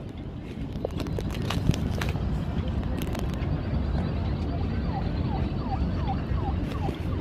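Steady low rumble of wind and water, with scattered sharp clicks in the first half. From about five seconds in, a run of short falling chirps, about three a second.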